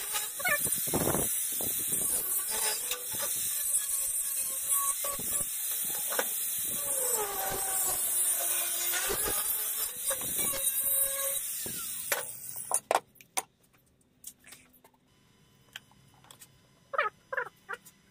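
Abrasive cutting disc grinding through a steel bar: a steady, hissing cutting noise with a whine that wavers in pitch as the load changes. It stops suddenly about two-thirds of the way through, leaving a few light clicks and knocks of metal parts being handled.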